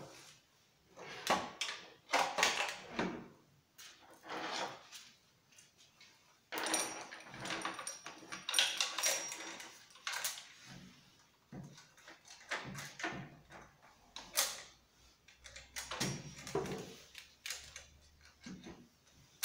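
Saw chain and guide bar being fitted by hand onto a Husqvarna 450 chainsaw, the engine not running: irregular metallic clinks and rattles of the chain and knocks of parts on the wooden bench, with a longer, busier stretch of rattling about seven to ten seconds in.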